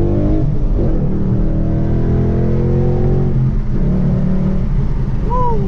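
Ford Mustang GT's 5.0-litre Coyote V8 accelerating hard, heard from inside the cabin, its note climbing in pitch. The note breaks with a brief dip about three and a half seconds in, a shift of the manual gearbox, then pulls again.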